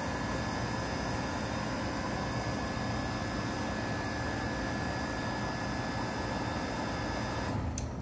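2004 Goodman PHK036 3-ton packaged heat pump running in cooling mode, a steady hum and hiss of compressor and fans with a thin whine. Near the end a click, then the higher hiss and the whine drop away as the unit starts to shut down.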